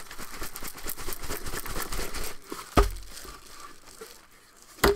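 Crinkling and rustling of packing material and a cardboard shipping box being handled and opened. There is a sharp thump near the middle and another sharp knock at the very end.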